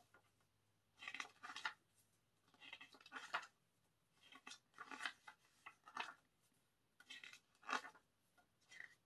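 Stiff glossy pages of an album photo book being turned by hand: a series of short, soft paper swishes and rustles, roughly one every second.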